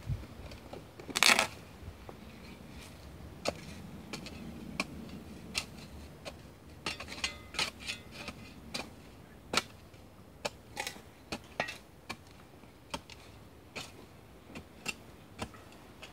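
Spades chopping and scraping into soil, a string of sharp, irregular clicks and knocks, the loudest about a second in.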